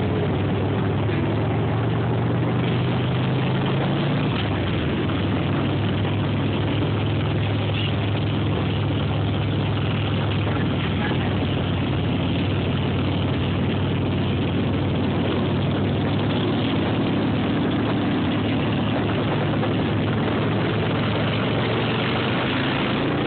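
Touring motorcycle's engine running steadily at low speed while riding in a slow procession of motorcycles, its note shifting slightly about four to five seconds in, with a hiss of wind and road noise.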